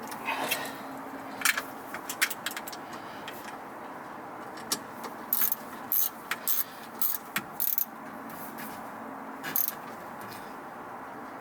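Irregular sharp metallic clicks and clinks of hand tools and hardware being handled while bolting a van seat swivel, bunched in quick clusters through the middle.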